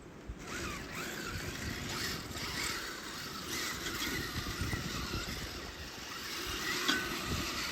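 Radio-controlled Blizzard snowcat running on icy snow: its small electric motor whines, the pitch wavering up and down with the throttle, over the rustle of its plastic tracks. The sound starts about half a second in.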